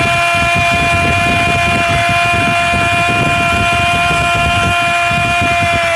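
A Brazilian football commentator's long drawn-out "gooool" shout, one note held at a steady pitch, over stadium crowd noise.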